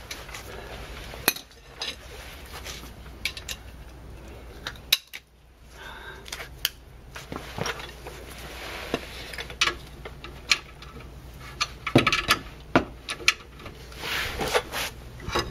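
Steel hand tools clinking and knocking as a breaker bar and socket are handled and fitted onto a brake caliper bracket bolt: scattered sharp metallic clinks at irregular intervals, several close together near the end.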